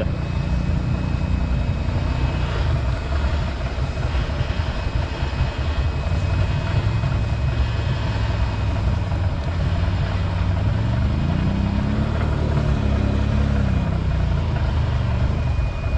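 ATV engine running at idle, revving up and easing back down about three-quarters of the way through.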